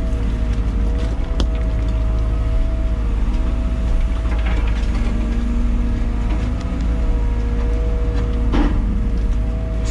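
Liebherr 914 Compact wheeled excavator heard from inside its cab: the diesel engine runs steadily with a constant whine as the bucket piles dirt. There is a short knock about a second and a half in and another near the end.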